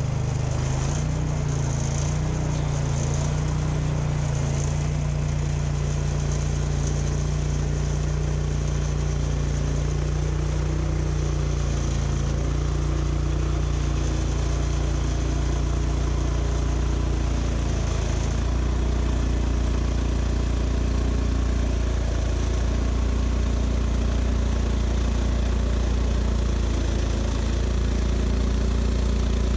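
An engine running steadily, its note shifting about 18 seconds in.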